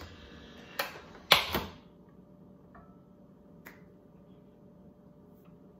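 Lid of a Nespresso Vertuo coffee machine being closed over a capsule: a short rustle and a click, then a sharper double clack about a second and a half in as the lid locks down.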